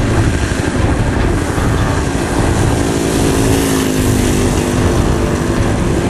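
Small piston engine and propeller of a Spoonbill UAV running with a buzzing tone that shifts in pitch about halfway through, over a steady low rumble.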